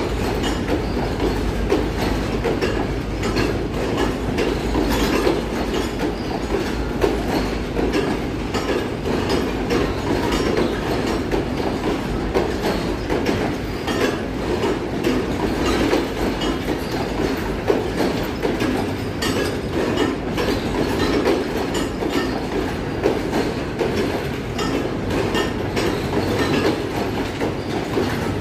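Passenger coaches of an express train rolling past, their wheels clicking and clattering over rail joints over a steady rumble.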